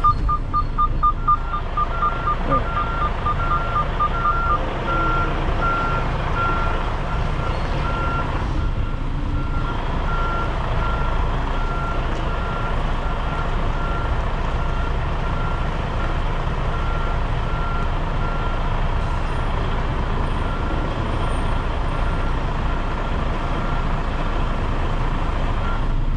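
Backup alarm beeping in a steady, regular rhythm over a semi-truck's diesel engine running as it reverses. A second, faster beeping runs alongside for the first few seconds.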